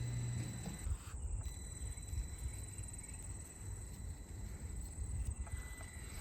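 Small electric RC crawler truck's motor and gearbox running at low speed, with a steady high-pitched electronic whine and uneven low rumbling as it crawls over the obstacles.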